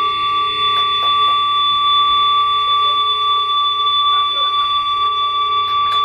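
Amplifier feedback: a steady, loud, high-pitched howl of several held tones over a low hum, with a few faint clicks.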